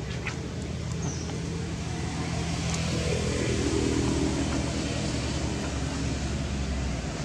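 A motor vehicle's engine running, a steady low drone that grows louder toward the middle and fades away near the end.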